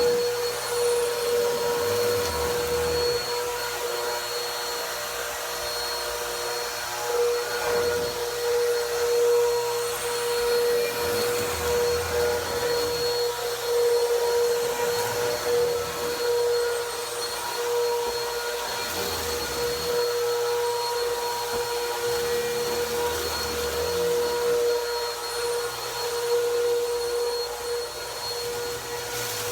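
Vacuum cleaner running on carpet, its motor holding a steady whine while the level swells and dips a little.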